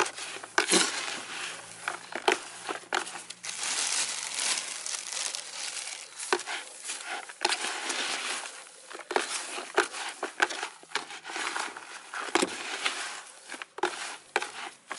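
Hand trowel stirring loamy soil and dry, unburnt rice husks in a plastic tub: uneven scraping and crackly rustling of the husks, broken by many short sharp clicks.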